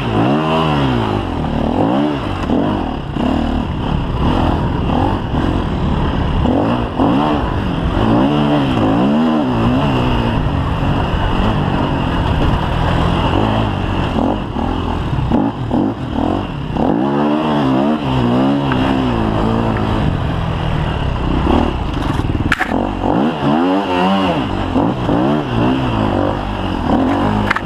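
KTM EXC 250 F single-cylinder four-stroke enduro engine under way on a dirt trail, its pitch rising and falling over and over as the throttle is opened and shut. A single sharp knock comes about three-quarters of the way through.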